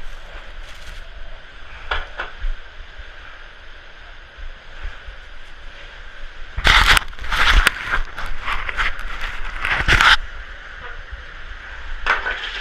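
Snow being shovelled: a few loud scraping, crunching strokes, the biggest about seven seconds in and again around ten seconds, over a steady low rumble of blizzard wind.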